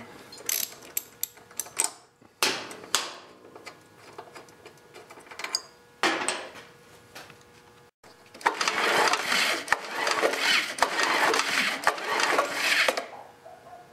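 Socket wrench clicking and tools clattering as the spark plug is taken out of a lawn mower engine and a spark tester is fitted. From about halfway in comes a run of loud, rapid mechanical rattling lasting about four seconds: the engine being turned over to fire the tester.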